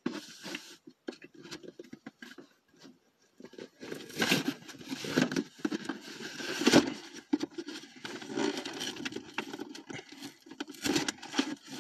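A package being torn open and handled by hand: irregular rustling, scraping and tearing of packaging, with louder bursts about four and seven seconds in.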